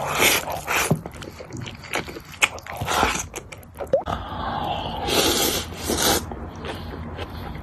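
Close-miked eating: chopsticks scraping a glass bowl as big mouthfuls of braised pork rice are shoveled in and chewed, with clicks and scrapes. About four seconds in comes a longer noisy stretch as noodles are slurped.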